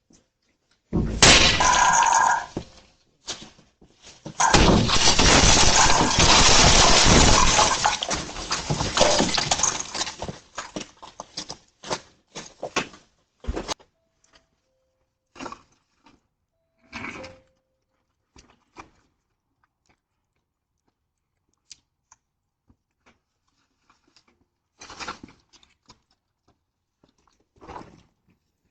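Rocks hitting a house and breaking things: a loud crash about a second in, a longer stretch of crashing and clattering from about four to ten seconds, then scattered sharp knocks that thin out.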